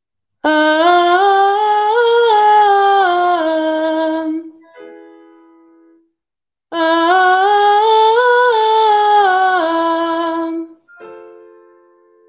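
A woman sings a vocal exercise twice in chest voice, each time stepping up a scale from about F4 to C5 and back down. She keeps her chest voice up to the top notes. A short piano cue of a few notes sounds after each run.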